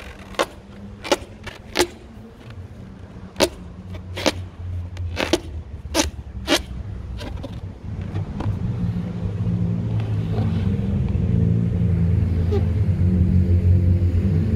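A large latex balloon being blown up by mouth: from about eight seconds in, a low drone of breath through the balloon's neck builds and grows louder. Before that, about ten sharp clicks or slaps on the balloon, spread over the first seven seconds.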